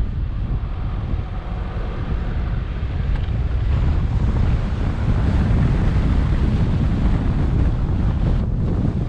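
Wind buffeting the microphone of an action camera on a moving car, a dense rumbling rush mixed with road noise; it grows louder a few seconds in.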